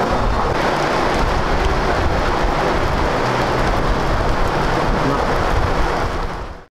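Loud, steady rushing background noise with no clear voices, fading out about six seconds in.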